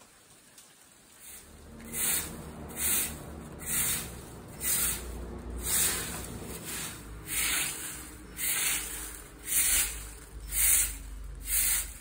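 Footsteps crunching through dry fallen leaves on a paved path, a steady walking pace of about one step a second, starting about a second and a half in.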